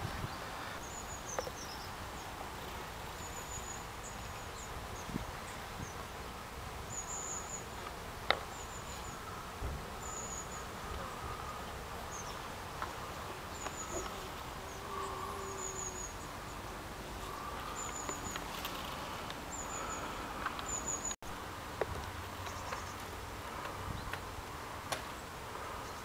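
Buckfast honeybees buzzing around an opened hive: a steady hum, with single bees now and then passing close by. Short high chirps repeat every second or two over it.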